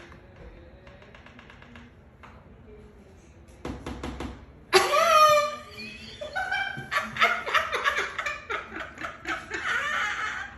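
A bird knocking, a quick run of about half a dozen taps. It is followed by a loud, high, gliding cry and then several seconds of laughter.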